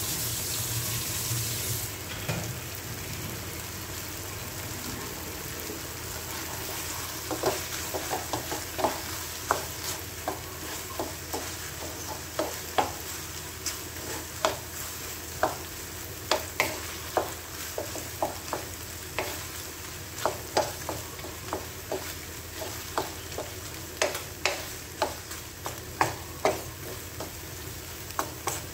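Shrimp and vegetables frying in a sauce in a nonstick wok, with a steady sizzle that is louder for the first two seconds. From about seven seconds in, a wooden spatula stirs and knocks against the pan, irregularly, about one to two knocks a second.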